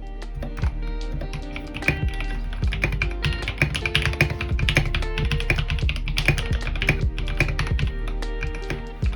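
Fast, steady typing on a GK61 mechanical keyboard fitted with lubed NovelKeys Cream linear switches, many quick keystroke clacks in a row, over background music.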